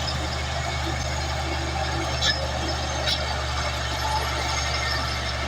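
Caterpillar D8 crawler bulldozer's diesel engine running steadily, with a couple of sharp clanks about two and three seconds in.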